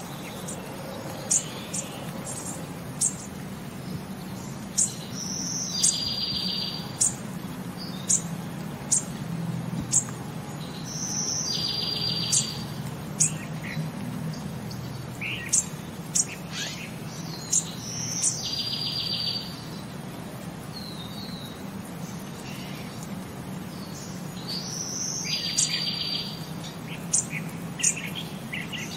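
Small birds chirping in short, sharp high calls over a steady low hum; the same group of calls comes back about every six to seven seconds, as a looped recording does.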